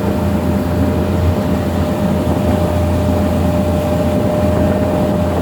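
Ferry boat's engine running steadily under way, a constant low drone with a steady higher whine over it and a noisy hiss throughout.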